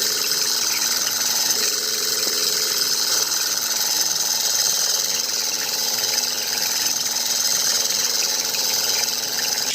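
A small motor running steadily with a high-pitched mechanical whir.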